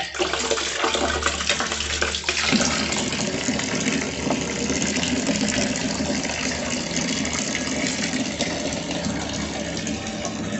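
Water running steadily in a strong stream from the outlet of a homemade PVC pipe water filter, pouring and splashing into a glass.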